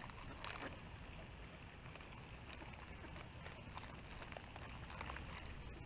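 Faint outdoor background noise: a steady low rumble with a light hiss over it and a few faint ticks.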